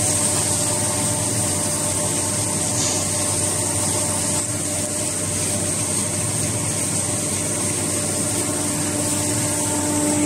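PC-800 plastic film crusher line with its blower running steadily while crushing PP/PE film: a constant mechanical drone with a steady whine, and no change through the whole stretch.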